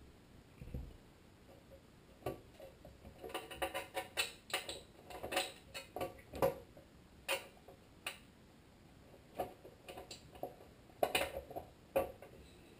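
Irregular small clicks, taps and rattles of the Tecumseh HM80's sheet-metal blower shroud being held and shifted by hand while the top bolts are fumbled into place, with a busier run of taps a few seconds in and another near the end. The bolts are not catching.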